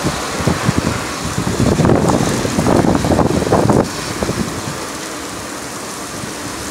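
Heavy thunderstorm rain pouring steadily, with tyre hiss from traffic on a wet highway. A louder, low, crackling burst of noise comes in about a second and a half in and stops abruptly near four seconds.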